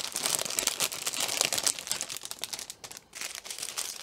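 Plastic crinkling as small clear bags of diamond painting resin drills are handled, a dense crackle with a brief pause about three seconds in.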